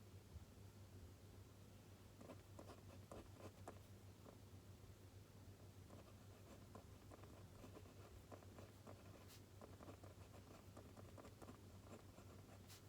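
Faint pen-on-paper writing: quick, short scratching strokes that start about two seconds in, with a couple of sharp ticks later on, over a steady low hum.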